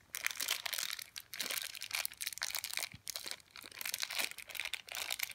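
Small clear plastic bag crinkling as it is handled and opened: a continuous run of irregular crackles.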